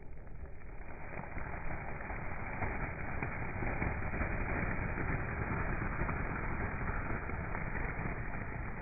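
Car running and rolling slowly, a steady engine and tyre noise that grows louder about a second in.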